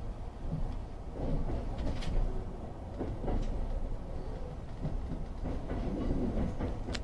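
Running noise of a limited express train heard from inside the carriage: a steady low rumble, with a few sharp clicks and knocks from the wheels on the track.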